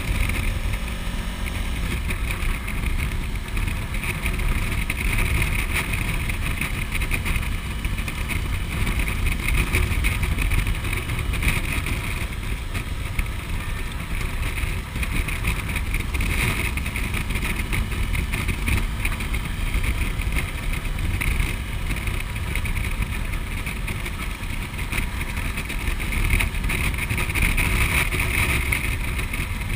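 Steady wind rush and engine drone of a Suzuki V-Strom motorcycle cruising at road speed, heard from the bike itself.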